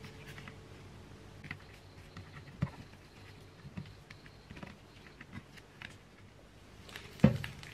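Banana-leaf-wrapped rice cake parcels crinkling and tapping as they are pushed into place on a grill pan: scattered light clicks, with one louder knock near the end.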